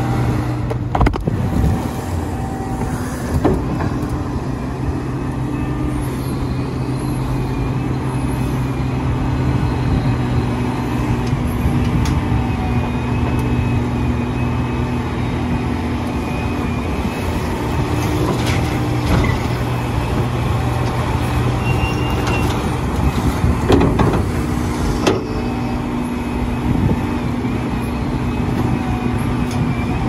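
Liebherr R 976 hydraulic crawler excavator working: its diesel engine drones steadily under a faint wavering whine, with a few sharp knocks about a second in and again over the second half.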